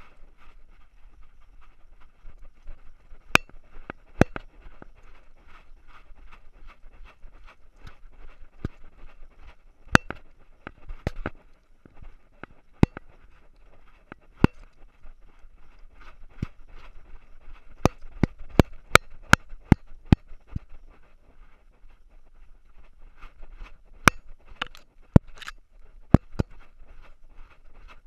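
Knocking and rattling of a GoPro Hero3 Silver on the collar of a running dog: a steady fast, fine rattle with irregular sharp clicks, some in quick clusters.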